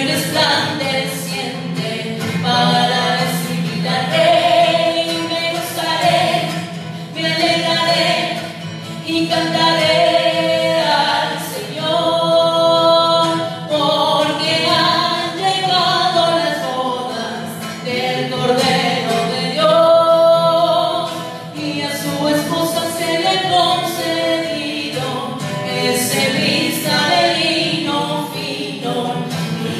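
A woman singing a Christian worship song into a microphone, accompanied by strummed acoustic guitar.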